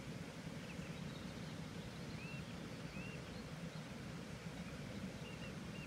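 Outdoor ambience: a steady low rumble with a few faint, short, high chirps from a bird, one about two seconds in, another a second later and a pair near the end. The slug's feeding itself is not heard.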